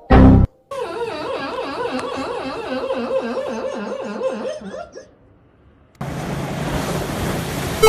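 A dog whining and crying in a rapidly wavering pitch, as a dog does while coming round from anesthesia. It opens with a short loud burst, the cry stops about five seconds in, and a steady noisy rush like wind or handling noise follows about a second later.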